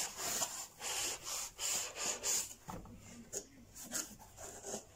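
Polystyrene foam packaging being slid out of a cardboard box and handled: a run of short, noisy strokes, fainter in the second half.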